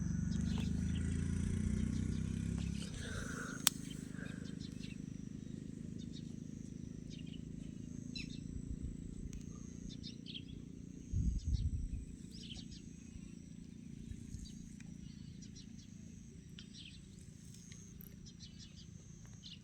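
Rural outdoor ambience with birds chirping now and then. A low steady hum fades out about three seconds in, and there is a brief low rumble a little past the middle.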